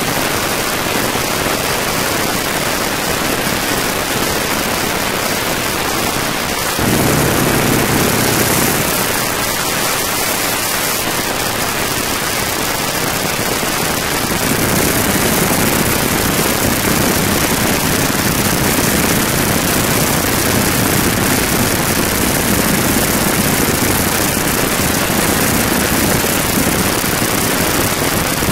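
Wind rushing through the open cockpit and rigging of a Boeing Stearman biplane in flight, over the steady running of its radial engine. The engine sound gets louder and fuller about seven seconds in.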